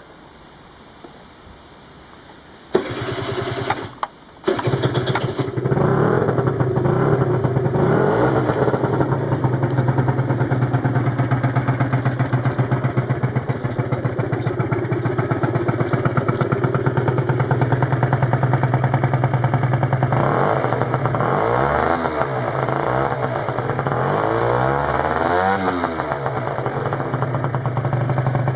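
Derbi GP1 50 cc two-stroke scooter engine with a Leovince Handmade TT exhaust starting about three seconds in. It cuts out for a moment, catches again and settles into a steady idle. Near the end it is blipped up and down on the throttle a few times.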